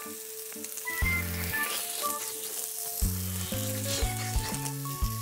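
Pork tomahawk sizzling on a hot elvan-stone (maekbanseok) grill, a steady hiss of fat frying. Background music runs over it, with a bass line and a melody of short held notes.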